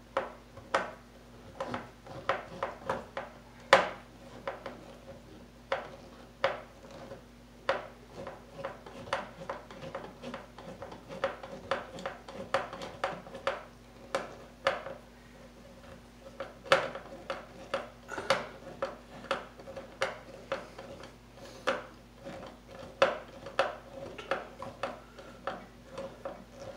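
Irregular metallic clicks and scrapes of a hand tool working inside a plastic electrical box overhead, several a second with brief pauses.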